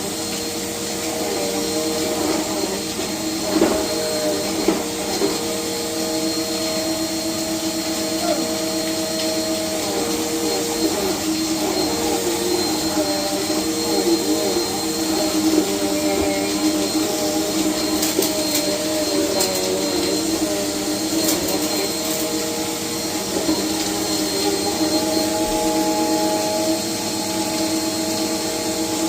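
Vacuum cleaner running steadily as it is pushed over the floor, its motor hum shifting slightly in pitch, with a few brief clicks.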